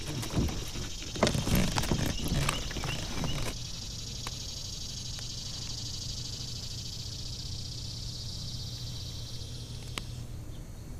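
A steady, high-pitched insect buzz that cuts off shortly before the end. During the first few seconds, clicks and knocks of gear being handled on a kayak are louder than the buzz.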